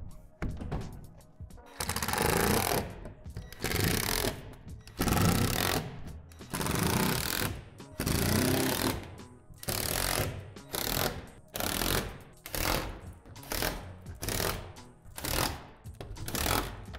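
Cordless impact driver driving screws into the plastic shed panels in a run of short bursts, each half a second to a second long, coming quicker and shorter toward the end.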